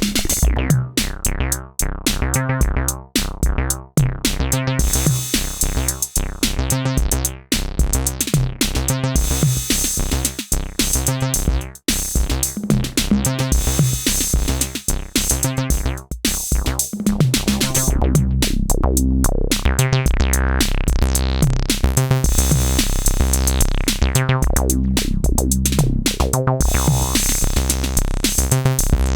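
Synthesizer bass line playing a fast repeating pattern over a drum machine beat. About two thirds of the way through the low end gets fuller and more sustained.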